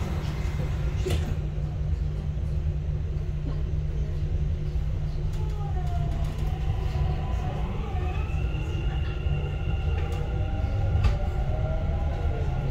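Dubai Metro train running, heard from inside the carriage: a steady low rumble, joined from about six seconds in by a whine that slowly rises in pitch.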